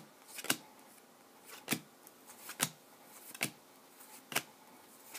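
2014 Bowman Chrome football trading cards being flipped through by hand one at a time, each card giving a short, crisp snap, about one a second.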